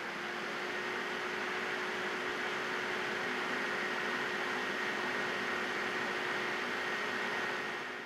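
Fans of a 12 V Peltier cooling unit running steadily after the thermostat has switched it on at its cut-on temperature: an even whir with a faint low hum and a thin high tone.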